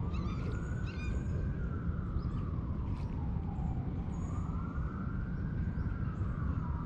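Emergency-vehicle siren in a slow wail, faintly rising and falling about every four to five seconds, over a steady low rumble.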